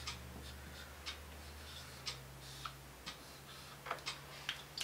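Felt-tip marker writing on a whiteboard: faint, irregular ticks and short scratchy strokes as the pen touches and lifts off the board, over a low steady hum.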